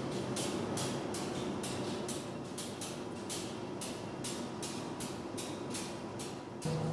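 Subway train standing at the platform: a steady hum with a faint high tone, under a regular hissing pulse about three times a second. Near the end it cuts abruptly to a louder, lower steady hum.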